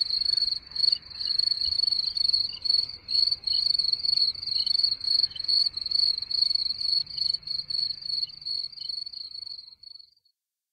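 Cricket chirping in a steady, even rhythm, about three chirps a second, fading out near the end.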